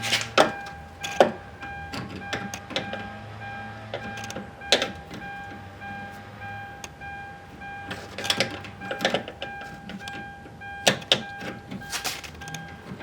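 Irregular clicks, taps and knocks of a hand tool against the plastic and metal parts of a car door as a piece is pried at, with a few sharper knocks. A faint steady high tone runs underneath.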